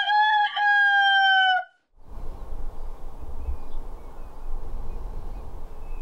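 A rooster crows once, a cock-a-doodle-doo with a wavering start and a long held note that sinks slightly. It stops abruptly after about a second and a half, cut in with dead silence on either side like an inserted sound effect. About two seconds in, a quiet, low, steady rumble begins.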